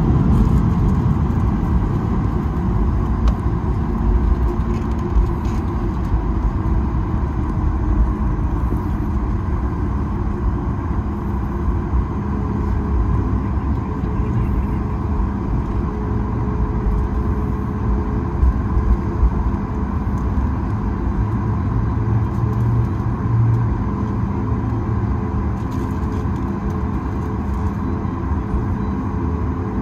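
Cabin sound of a Boeing 737 MAX 9 taxiing on CFM LEAP-1B turbofans at low power: a steady low rumble with a faint engine whine. A second, lower whine comes in about halfway through and holds steady.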